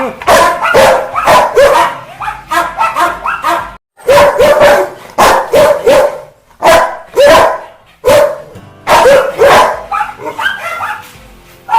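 Angry Rottweiler barking hard and repeatedly in fast runs of loud barks, with two brief dead-silent breaks about four and eight seconds in.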